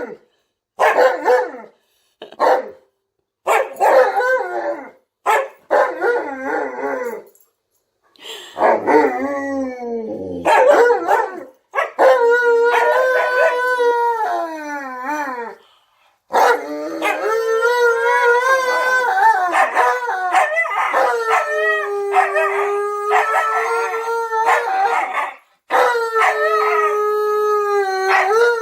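An Alaskan malamute and a Siberian husky 'talking' in dog vocalizations. There is a run of short, broken woo-woo calls, then from about twelve seconds in long wavering howls that bend up and down in pitch.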